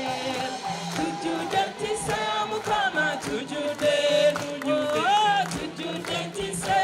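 Live gospel worship song: a lead voice and choir singing over band accompaniment, with the crowd joining in.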